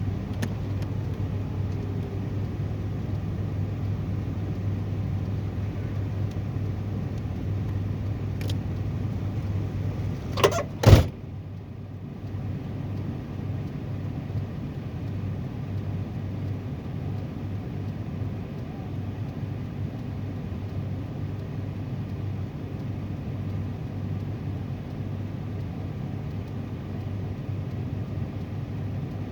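A car's engine running steadily, heard from inside the cabin, with two sharp knocks a little over a third of the way in, after which the hum is slightly quieter.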